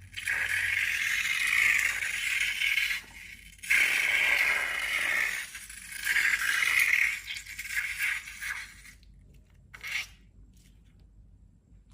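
Scraping, rustling handling noise of slime-making materials in several bursts, stopping about nine seconds in, with one short burst near the end.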